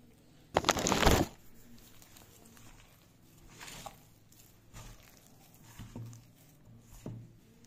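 A hand mixing and pressing atta dough in a steel bowl: soft, irregular patting and squishing. There is a louder rustling burst about half a second long just after the start.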